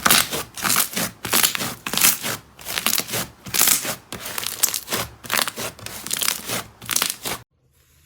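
Slime being squeezed and pressed by hand, giving crackling, crinkly strokes about three times a second. The strokes stop suddenly about seven seconds in.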